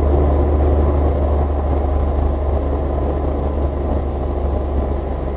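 Steady low hum of a car's engine and road noise, with no impacts.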